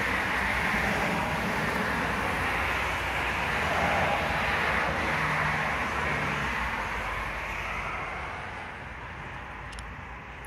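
Low rolling thunder: a long, steady rumble that swells about four seconds in and then fades away over the last few seconds.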